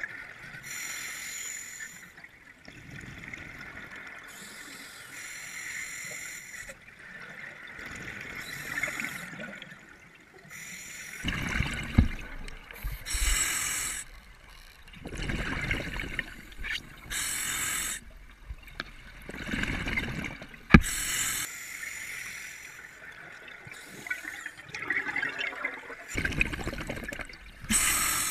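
Underwater gurgling and rushing of a scuba diver's exhaled bubbles from the regulator, coming in bursts every few seconds, with a couple of sharp clicks.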